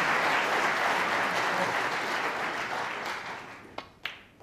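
Audience applause dying away, then two sharp clicks near the end: a snooker cue tip striking the cue ball, and a ball striking another ball.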